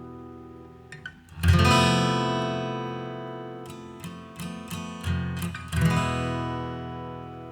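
Acoustic guitar music: chords strummed and left to ring out, with a few single plucked notes in between.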